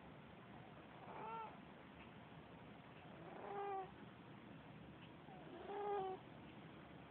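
A sleeping cat snoring: three faint, squeaky, pitched snores about two seconds apart, each swelling and then cutting off suddenly.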